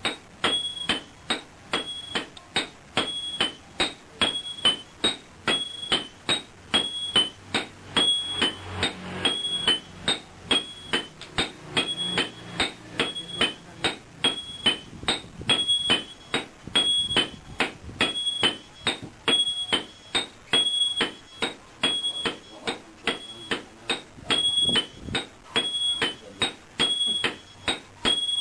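Blacksmith's hammer forging iron on an anvil: a steady rhythm of about two to three blows a second, many with a clear high ring.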